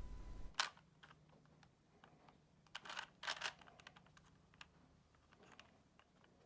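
Faint plastic clicks and clacks of a Shiroi Rubik's Cube, the all-white textured edition, being turned by hand during a solve. The turns come in short flurries with pauses between them, the busiest around the middle.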